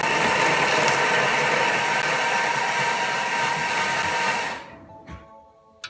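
Thermomix blade chopping carrot, celery, mushrooms, onion and parsley on speed 6 for five seconds: a loud, steady motor whir that winds down about four and a half seconds in. It is followed by a short electronic tone from the machine as the programme ends.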